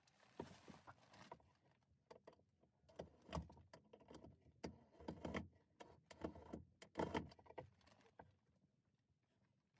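Light knocks, taps and rustling as wooden hanging bins are handled and fitted overhead. The sharp knocks come irregularly over the first eight seconds, and it goes quiet near the end.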